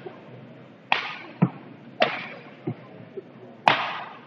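Badminton racket strings striking a shuttlecock three times during a rally, each a sharp crack with a short echo from the hall. There are lighter thuds of footfalls on the wooden court between the hits.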